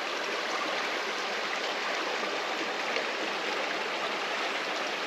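Forest creek water running steadily, a constant even rush with no break or change.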